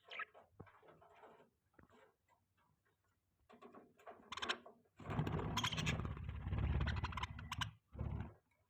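Budgies chirping and chattering in short, broken bursts. From about five seconds in until near the end, a louder stretch adds a low rumble under the chatter.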